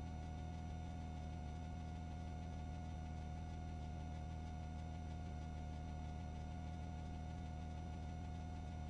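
A steady low hum with a constant mid-pitched whine above it, unchanging throughout.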